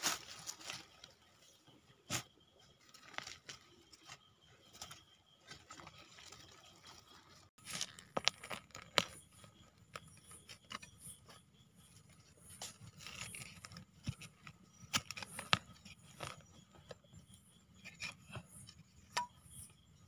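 Hands brushing through dry leaf litter and scraping and digging in forest soil to unearth termite mushroom buttons: irregular rustles, scrapes and small clicks.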